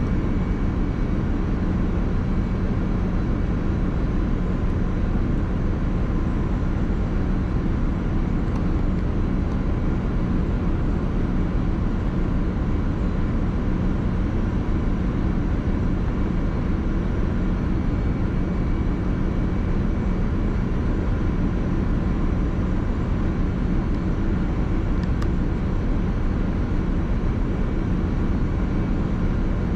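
Steady, unchanging low drone of a ship's running machinery, with faint hum tones riding on it. Two faint small ticks are heard, about nine seconds in and again near twenty-five seconds.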